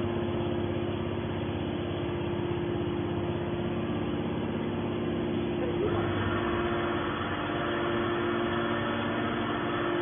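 Hydraulic scrap metal baler running: a steady hum of its motor and hydraulic pump that grows fuller about six seconds in.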